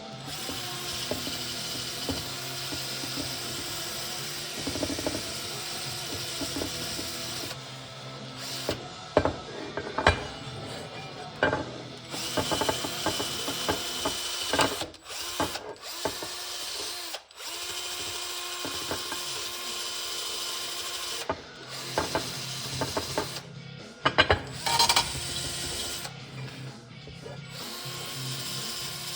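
Small handheld power tool, a stand-in for a burnt-out rotary tool, running in spells: its motor drops off and picks up again several times, with sharp clicks and scrapes as it works the part.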